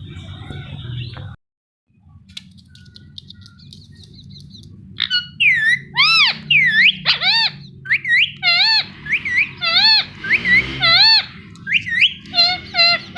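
Indian ringneck parakeet giving a rapid series of short, shrill chirping calls, about two a second, starting about five seconds in after a quieter stretch.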